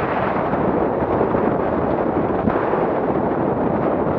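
Strong wind buffeting the camera microphone in a steady rumble, over water rushing and splashing along the hull of a heeled Laser 2 sailing dinghy.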